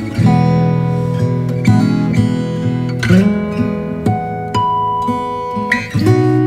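Background music: acoustic guitar playing plucked and strummed chords, with a new chord struck every second or so.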